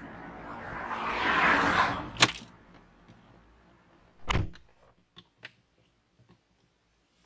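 Rustling as a person gets into the driver's seat of a 2003 Honda Accord, a sharp click about two seconds in, then the car door shutting with a heavy thump a little after four seconds. A few faint clicks follow inside the closed cabin.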